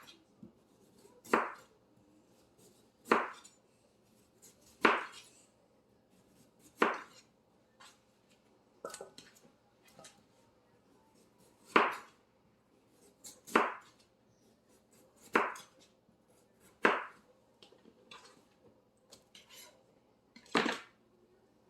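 Knife cutting the rind off a canary melon, about a dozen sharp chopping strokes one and a half to two seconds apart, with a few softer ones in a lull partway through.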